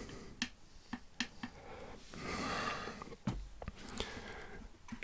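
Light clicks and taps from handling small coil-building tools and the atomiser on a coil-building stand, with a short soft hiss a little after two seconds in.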